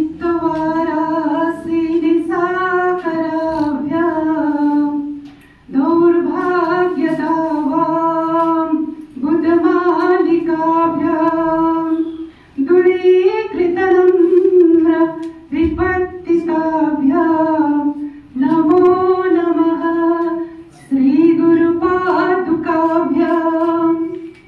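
A woman singing unaccompanied into a microphone, holding steady notes in about seven phrases of a few seconds each with short breaks between them.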